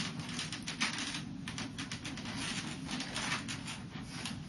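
Irregular light clicks, taps and creaks of hard plastic as hands grip and tug at the sealed top panel of an iMac G3's case, over a steady low hum.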